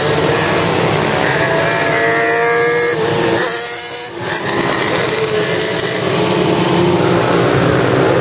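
Motorcycles riding in a group, engines running with their pitch rising and falling as riders accelerate and ease off. The nearest engine drops away briefly about halfway through, then picks up again.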